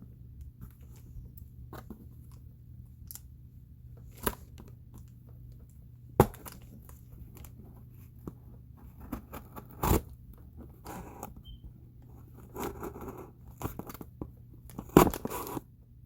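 Cardboard box and plastic packaging being handled and opened by hand: sharp taps and knocks several seconds apart, the loudest near the end, with short bursts of rustling and tearing. A low steady hum lies underneath.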